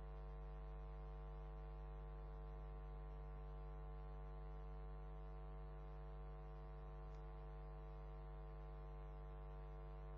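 Steady electrical mains hum with a buzzy row of overtones, unchanging and with no other sound over it.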